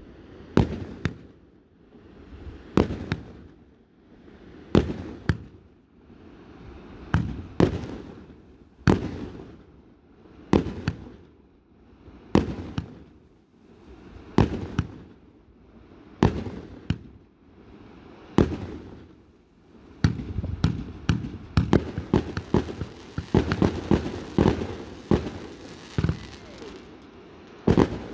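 Aerial fireworks display: sharp bangs of shells bursting, mostly in pairs about every two seconds, building into a dense rapid volley about twenty seconds in, with one more loud bang near the end.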